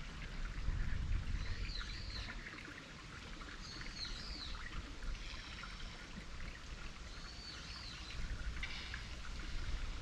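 Outdoor ambience: a small stream trickling under a low rumble, while a bird calls with short arching chirps about every two to three seconds. There is a brief buzzy trill near the end.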